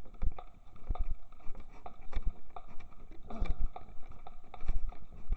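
Irregular dull thuds of hooves and footsteps on soft paddock ground, a horse walking close by.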